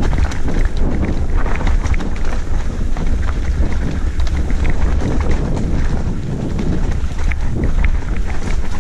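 Wind buffeting a helmet-mounted camera's microphone during a fast mountain-bike descent, a steady low rumble, over the noise of tyres running on a dirt trail and scattered short clicks and rattles from the bike.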